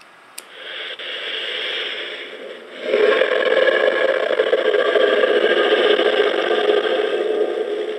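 A recorded lion roar played loudly through the small loudspeaker of a custom sound-effect module, set off with a click. A first swell is followed, about three seconds in, by a louder, longer roar that fades near the end.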